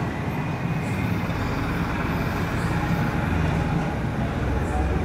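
A steady low rumble of background noise, like distant traffic, with faint strokes of a marker on a whiteboard.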